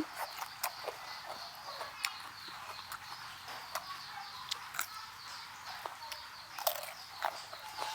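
Quiet eating sounds of raw prawn being chewed: scattered soft clicks and crunches, over a steady outdoor background with faint bird chirping.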